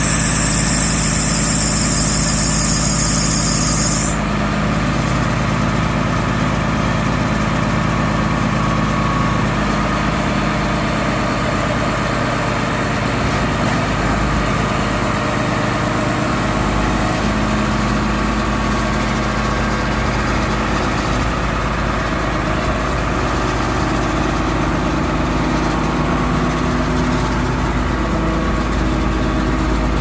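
Truck engine running steadily, with a high steady hiss over it that stops about four seconds in.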